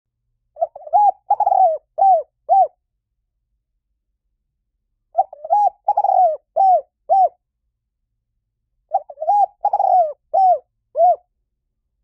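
Spotted dove cooing: three phrases of about five short, arched coos each, the phrases repeating roughly every four seconds with silence between.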